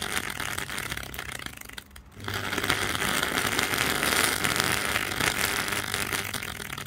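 Over-volted blender motor running while its windings burn: a harsh rattling whir thick with crackling. It briefly drops out about two seconds in, then picks up again.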